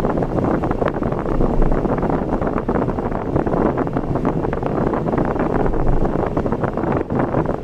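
A car driving along a road, with a steady rumble of road noise and wind buffeting the microphone throughout.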